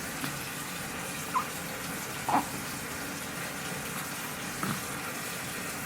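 A newborn baby hiccuping faintly, a couple of times about two seconds apart, over a steady hiss.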